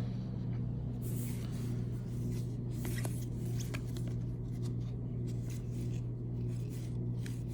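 Baseball cards being handled and flipped through, with light rustling and a few soft clicks, over a steady low hum.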